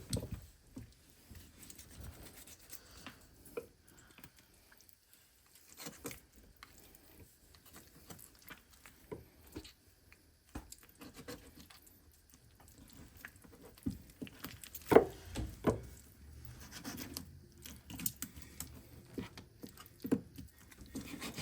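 Knife deboning a raw chicken breast: scattered soft scrapes, taps and rubs of blade and meat, with a few louder knocks about two-thirds of the way through.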